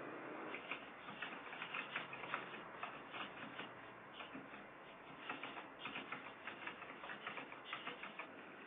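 Irregular light clicking and tapping, several clicks a second in uneven clusters, over a steady hiss.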